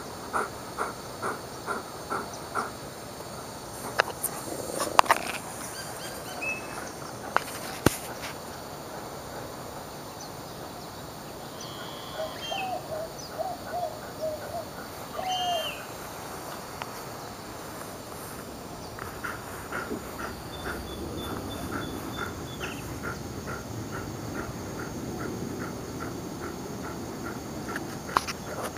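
Outdoor ambience of insects chirping in a steady rhythm, about three pulses a second, fading out a few seconds in and returning in the last third. A few short calls, likely birds, sound in the middle, and several sharp clicks a few seconds in are the loudest sounds.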